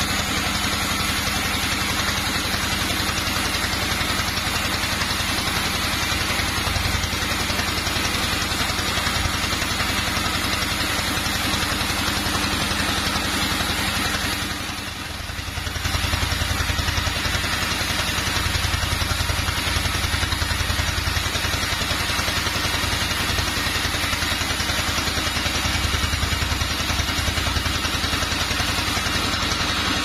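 Sawmill machinery running steadily while a teak log is sawn into boards: a continuous mechanical drone, with a brief dip in loudness about halfway through.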